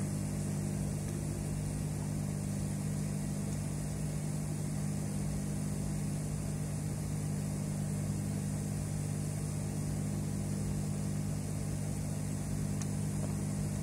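A steady low mechanical hum, even and unchanging throughout.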